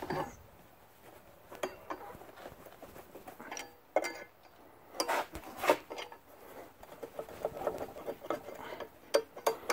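Scattered metal clinks, taps and scrapes as an engine-stand mounting plate and its bolts are worked into line against a Model T Ford cast-iron engine block, with a few sharper knocks.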